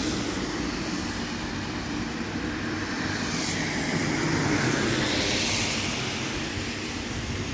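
Road traffic on a wet road: a steady rumble of passing cars with tyres hissing on the wet tarmac, swelling as a car goes by twice a little after the middle.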